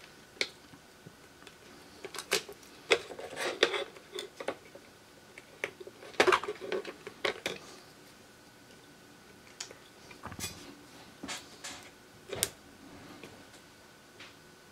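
Irregular light clicks, taps and clatter of small hard objects handled on a repair bench: tools and phone parts being picked up and set down. A faint steady high tone runs underneath.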